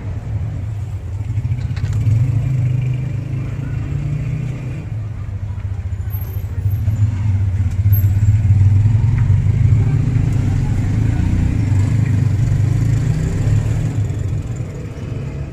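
Steady low rumble of passing street traffic with motorcycle engines, growing louder toward the middle and easing near the end.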